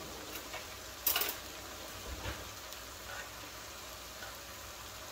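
Ground beef and vegetables sizzling softly in a nonstick skillet, with a spoon scraping through the pan once about a second in and a few light clicks of the spoon later.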